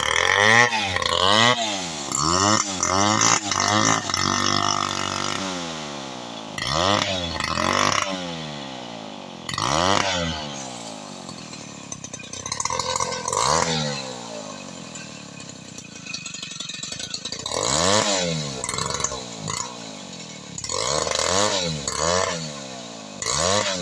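Chainsaw engine revved again and again in short bursts, each rising in pitch and falling back, with a couple of longer spells at a steady lower speed.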